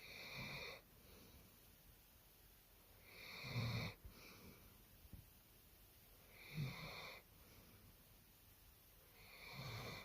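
A sleeping dog snoring, with a snore about every three seconds, four in all. Each snore is a low rumble with a thin whistling note on top.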